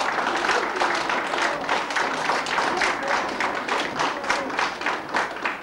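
Audience applauding, a dense steady clapping that thins to a few scattered claps near the end.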